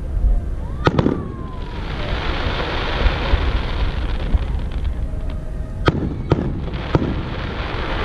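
Aerial fireworks going off: a sharp bang about a second in with a brief whistle, then several seconds of dense crackling from crackle-effect stars, then three more bangs in quick succession near the end.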